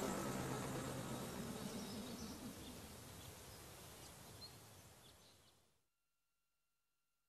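A steady noisy ambience with a few faint chirps, fading away and cutting to silence about six seconds in.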